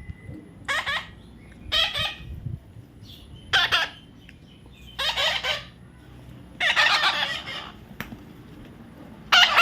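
Parrot giving about six loud, harsh calls, spaced a second or two apart, the longest near the middle lasting about a second.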